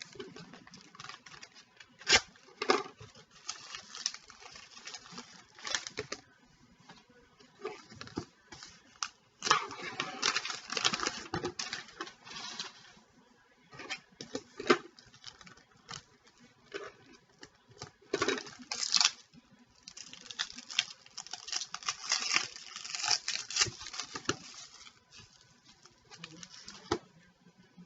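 Trading card packs and cards being handled: irregular bursts of crinkling, rustling and light clicking as wrappers are torn open and cards are shuffled.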